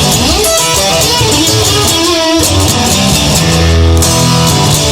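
Rock song's instrumental passage led by electric guitar, with bass under it; the low end drops out briefly about two seconds in before sustained bass notes return.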